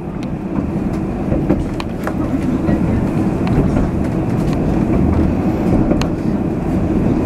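Alstom Citadis 302 tram under way, heard from inside the car: a steady rolling rumble of wheels on rail, with a few short sharp clicks.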